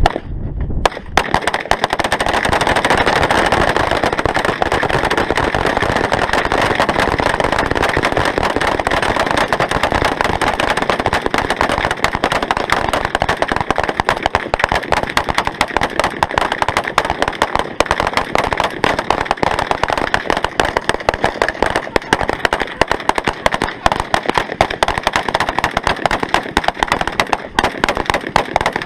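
Continuous rapid gunfire, shots coming many a second without a pause, typical of full-automatic fire.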